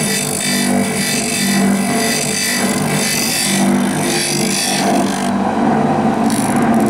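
Small electric grinder running, its abrasive wheel grinding the teeth of a toothed metal cutter fed against it in a hand-worked sliding fixture. A steady motor hum runs under a harsh grinding hiss, which stops about five seconds in and returns briefly near the end.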